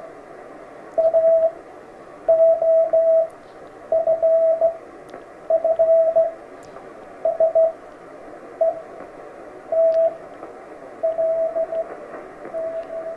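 Slow hand-sent Morse code (CW) coming from a ham radio transceiver's speaker: a single steady beep keyed on and off in dots and dashes over a continuous bed of receiver hiss. The hiss is wide because the radio has no narrow CW filter.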